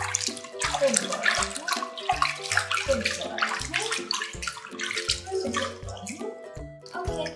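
Water sloshing and splashing in a filled sink as hands scoop it over a kitten being bathed, with light background music carrying a repeating bass note.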